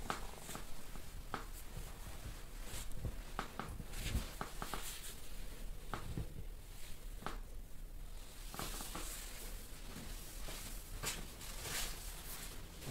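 Hands pressing and rubbing over clothing and a bedsheet during a dry massage: soft, irregular fabric rustling with scattered light taps.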